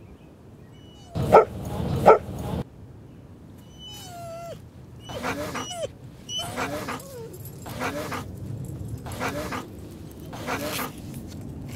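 Dog vocalizations recorded at a dog park: two loud barks about a second in, a thin high whine a few seconds later, then a string of short rising-and-falling whines about every second and a half.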